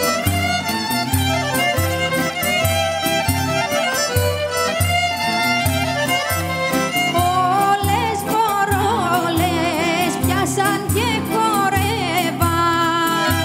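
Greek Ionian-islands folk ensemble playing a dance tune: violin leading the melody over guitar, accordion and percussion keeping a steady beat of a little under two a second.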